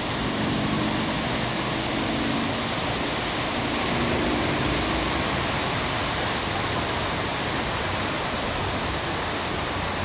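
Strong wind rushing through palm fronds and tree leaves, a steady, even hiss, with a low rumble of wind buffeting the microphone.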